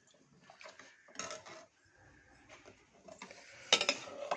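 Metal cookware and utensils clinking and clattering against a pot in a few scattered knocks, the loudest near the end.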